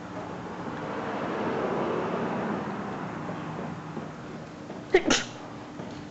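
A person sneezes sharply about five seconds in, after a broad rush of noise that swells and fades over the first few seconds.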